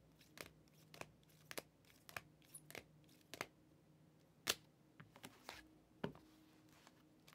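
Faint, irregular clicks and taps of trading cards in clear plastic holders being handled and flipped through one by one, about a dozen in all, the loudest about four and a half seconds in.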